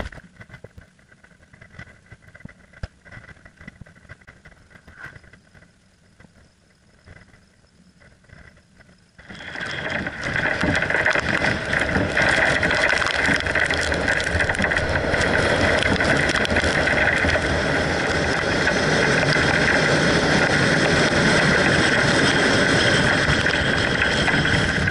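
Faint until about nine seconds in, then the loud, steady noise of a car driving, with engine, tyre and wind noise, filmed from the vehicle on a wet road in a storm.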